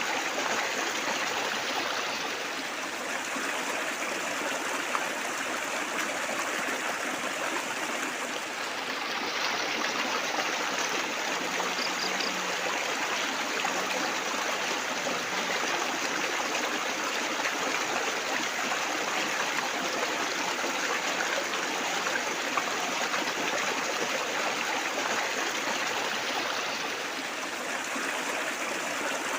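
Steady trickling and splashing of flowing water, like a small stream or fountain.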